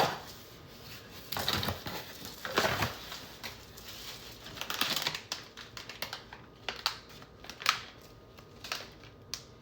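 A package being opened by hand: its packaging crinkles and rustles in several bursts, then gives way to shorter, lighter ticks and taps near the end.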